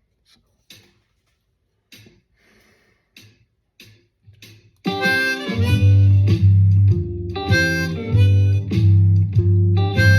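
A few faint taps and clicks, then about five seconds in a blues shuffle backing track in G with guitar starts suddenly and loudly, with a C harmonica played in second position over it.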